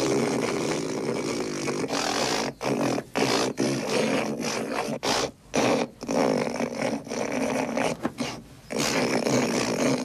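A man hawking up phlegm from the back of his throat to gather a big gob of spit. A long stretch of harsh throat-clearing comes first, then a series of shorter bursts with brief pauses between them.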